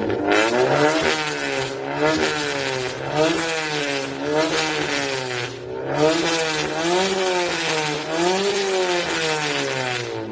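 Car engine revved again and again, its pitch rising and falling about once a second over a steady rushing hiss.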